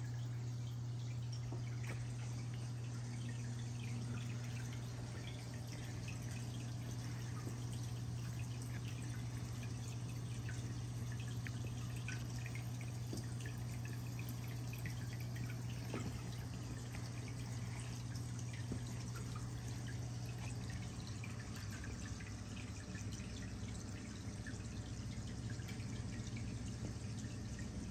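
Reef aquarium water trickling and dripping steadily, with many small drips, over a low, steady pump hum.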